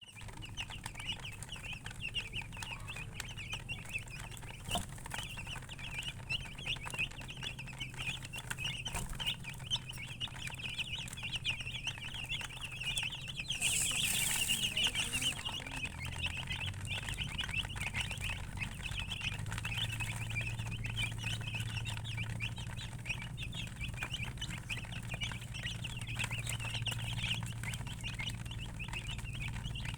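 Chicks peeping continuously in a dense, high-pitched chorus, with a brief rustling burst about halfway through and a steady low hum underneath.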